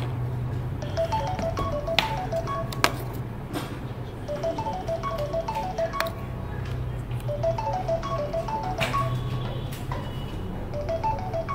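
Mobile phone ringtone playing a short melody of quick notes that repeats over and over, over a steady low hum.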